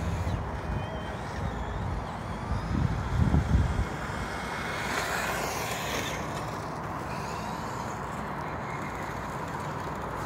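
Motor vehicle noise: a low, uneven rumble for the first few seconds that gives way to a steadier hiss.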